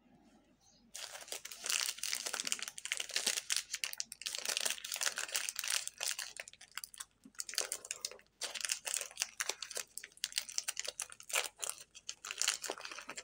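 Plastic wrapper of a mini Snickers bar crinkling and tearing as it is peeled open by hand. It starts about a second in and goes on with a few short pauses.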